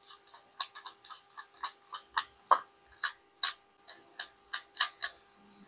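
A nut being threaded by hand onto a small 5 mm screw in a plastic enclosure: a string of irregular light metal and plastic clicks, about two or three a second, the two sharpest a little after three seconds in.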